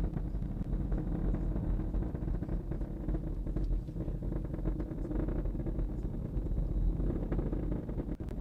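Falcon Heavy rocket's Merlin 1D engines firing in flight: a steady low rumble, dipping briefly near the end.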